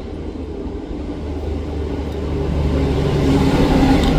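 Low engine-like rumble with a steady hum in it, growing louder toward the end.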